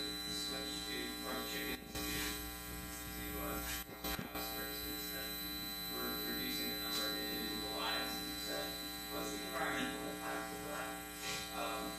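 Steady electrical mains hum with a buzzing stack of overtones, under a distant, off-microphone voice asking a question.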